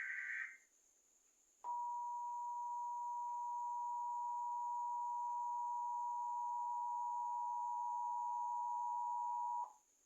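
Emergency Alert System signalling: a short warbling data burst (the end of the SAME header), then about two seconds in the two-tone attention signal, a steady dual tone near 850 and 960 Hz held for about eight seconds that cuts off suddenly near the end.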